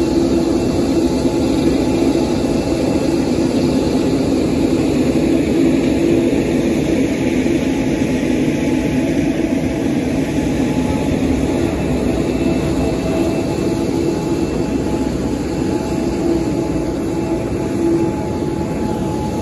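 Boeing 787-9's GE turbofan engines running steadily at taxi power, a loud even rumble with a low hum.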